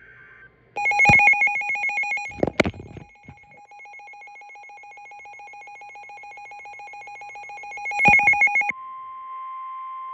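An electronic alert alarm sounds as a rapidly pulsing ringing tone for about eight seconds, broken by a few sharp knocks. Near the end it gives way to the steady single-pitch 1050 Hz NOAA Weather Radio warning alarm tone, the signal that comes before a warning broadcast.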